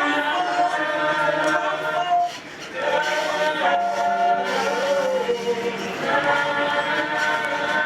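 A group of voices singing a cappella together, holding long notes in harmony, with a brief break about two and a half seconds in.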